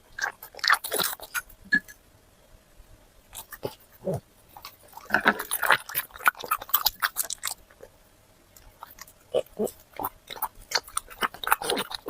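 A dog chewing and crunching chicken: irregular wet crunches and bites in three bouts, with short pauses between them.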